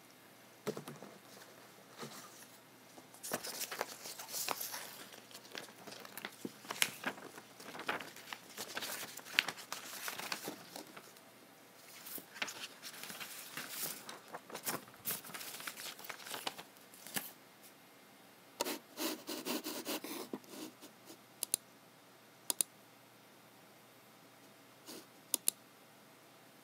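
Close-up sounds of hands working a computer: irregular runs of clicks and taps mixed with short scratchy rubbing noises, a denser scratchy stretch a little past the middle, then a few single clicks near the end.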